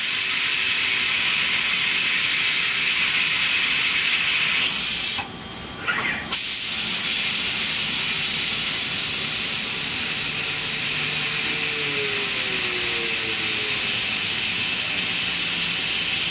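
CNC turning centre machining with a steady spraying hiss of coolant. About five seconds in the hiss drops away for roughly a second, with a short rising whine, then resumes.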